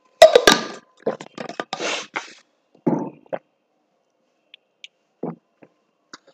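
A man drinking water from a bottle close to the microphone. A loud burst of sound starts it, followed by a run of mouth and swallowing sounds over the next two or three seconds, then a few faint clicks and one short sound near the end.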